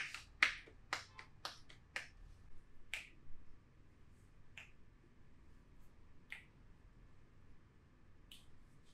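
A run of short, sharp snapping clicks from hands at work in a massage, coming quickly for the first three seconds and then only every second or two.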